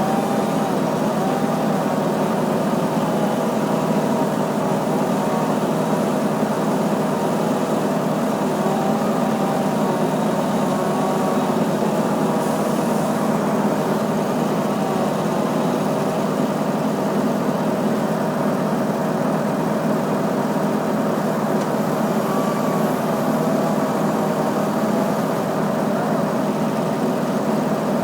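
An engine running steadily without pauses, with small wavering rises and falls in pitch.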